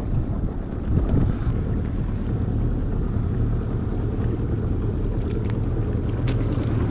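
Boat's outboard motor running steadily at low speed, with wind buffeting the microphone. A few light clicks come in the second half.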